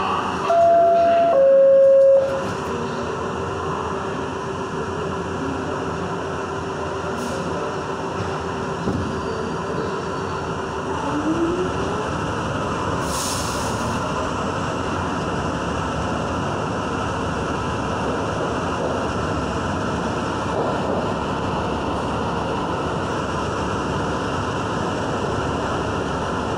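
An R62 subway train running through a tunnel, heard from inside the car: steady rail and running noise. A loud two-note tone, stepping down in pitch, sounds briefly near the start, and a steady whine ends in a short rising glide about eleven seconds in.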